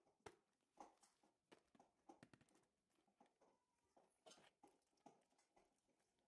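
Faint, irregular clicks and light taps of a cardboard dessert-mix box being picked up and handled, a few per second, the loudest near the start.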